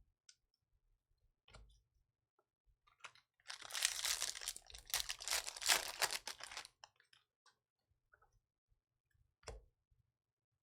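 Trading card pack wrapper being torn open and crinkled, a dense rustle lasting about three seconds in the middle, with scattered light clicks and taps of handling before and after.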